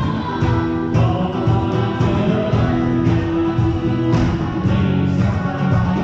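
Live contra dance music: a fiddle playing held, sustained notes of a reel-type tune over a strummed acoustic guitar keeping the rhythm.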